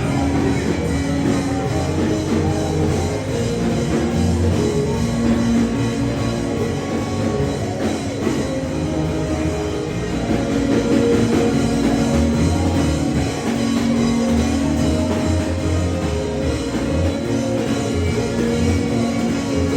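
Loud band music with drums and guitar.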